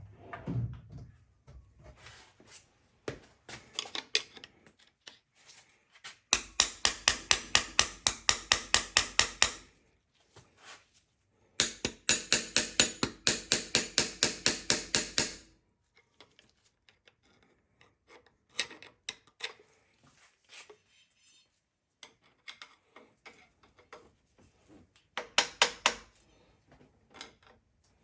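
Ratchet wrench clicking in two long runs of fast, even clicks, about four or five a second, with a shorter run near the end and scattered single taps and knocks of tools on the engine between.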